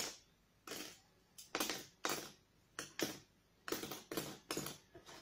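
Wooden craft lolly sticks clacking as they are picked up and set down on a table: a string of short, sharp clicks at uneven intervals.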